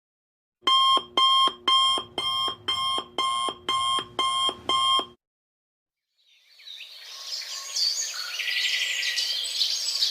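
Electronic alarm clock beeping: about ten short pitched beeps, roughly two a second, which stop after about four and a half seconds. After a second of silence, a wash of chirping fades in.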